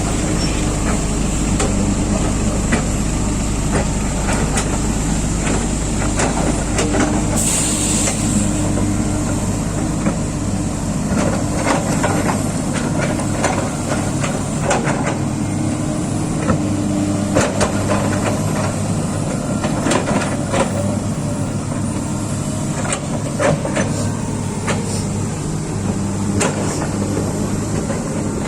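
Heavy diesel engines of an excavator and a coal-laden dump truck running, with scattered metallic knocks and clanks. There is a short hiss about eight seconds in, and the deep engine rumble eases after about ten seconds.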